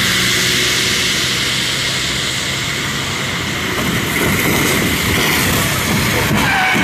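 Traffic on a wet, flooded highway: a steady hiss of tyres and spray through standing water. A low rumble grows about four seconds in as a lorry swerves off the road through the water.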